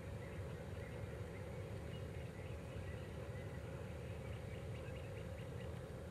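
2TE10U diesel locomotive's 10D100M two-stroke opposed-piston diesel engine running steadily, a faint low rumble that does not change.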